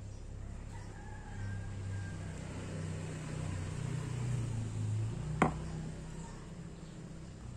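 Low background rumble that swells in the middle, with faint drawn-out animal calls early on and a single sharp click about five and a half seconds in.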